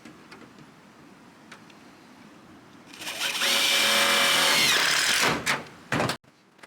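Power drill driving a screw into the metal roofing panels, running for about two seconds: it speeds up, holds a steady whine, then winds down. A short sharp knock follows near the end.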